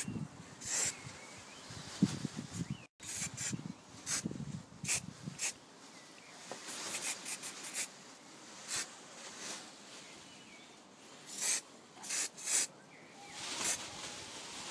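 Short hissing bursts from a Humbrol acrylic aerosol spray can, a dozen or so quick squirts of primer with a longer run of them about seven seconds in, amid light rustling as the plastic model part is turned in the hand.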